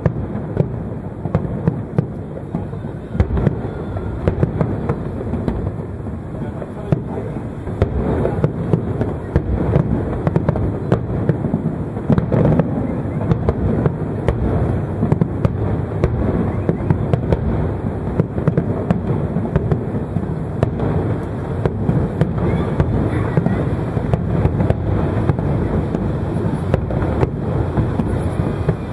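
Fireworks display: aerial shells bursting in rapid, overlapping succession. A continuous run of booms and sharp cracks.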